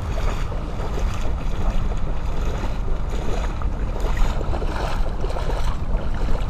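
Steady wind rumble on the microphone, with light sloshing of shallow water as a hand reaches down into it.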